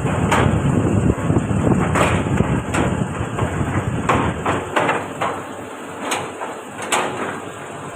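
Caterpillar 320D L excavator at work: the diesel engine running under load, with irregular metallic knocks and clanks from the bucket and arm.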